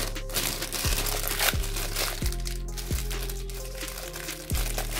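Thin black plastic bag crinkling as hands pull it open, over background music with a steady beat.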